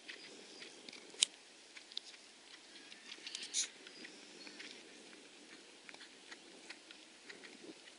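Horse cantering on grass: soft, irregular clicks from hooves and tack, with one sharper click about a second in and a short cluster a little after the middle.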